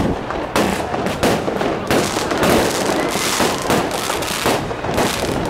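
Aerial fireworks bursting in rapid succession: a dense, continuous run of bangs and crackles.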